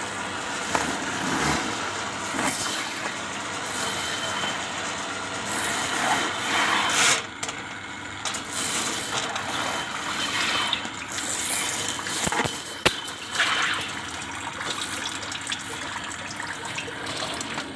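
Ridgid drain-cleaning machine running, its spiral steel cable turning and scraping through a concrete drain; the noise swells and fades repeatedly, with a few sharp clicks past the middle.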